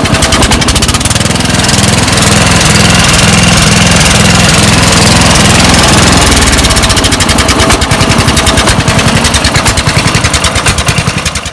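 Lawn mower engine running at full throttle through a short home-built straight-pipe exhaust, loud, with rapid, even exhaust pulses; the pulses stand out more sharply from about seven seconds in.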